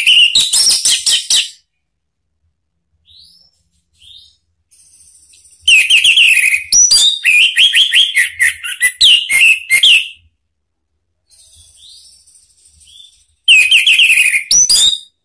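Orange-headed thrush singing loud, fast phrases of whistled glides mixed with rasping notes, in three bursts: a short one at the start, a long one from about six to ten seconds in, and a short one near the end.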